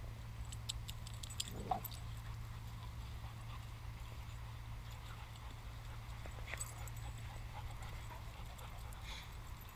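Dogs playing on leaf-covered ground close by: light paw steps, rustling and scattered clicks over a steady low hum, with one short dog whine a little under two seconds in.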